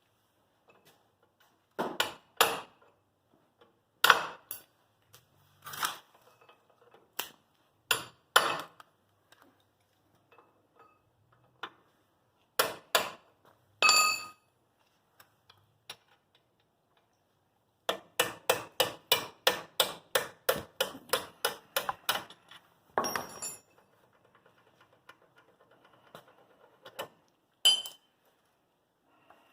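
Hammer blows on a brass punch driving the pins out of a brake caliper: separate strikes at first, one ringing metallic, then a quick run of about four taps a second for several seconds, and a few more blows near the end.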